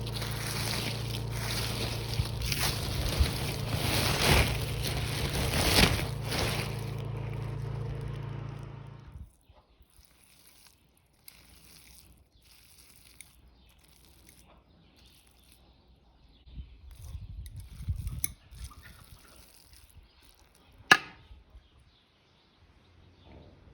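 A machine with an electric motor runs with a steady hum under a rough rushing noise, then stops abruptly about nine seconds in. After that there are only faint handling sounds and one sharp click near the end.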